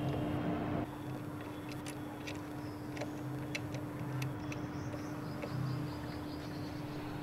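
Scattered light clicks and taps of small metal parts as a clamp and lever are worked onto a power weeder's handlebar, over a steady low hum.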